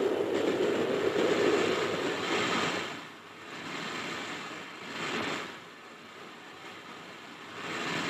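Steam locomotive noise on the footplate: a steady rushing that drops away about three seconds in, swells briefly around five seconds, and rises again near the end.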